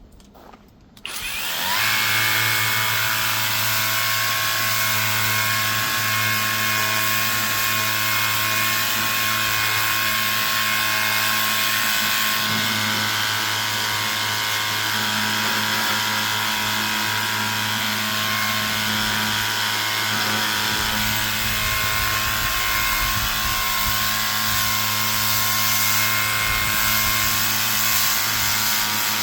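Pressure washer starting about a second in, its motor winding up briefly and then running steadily, with the hiss of the water spray over it.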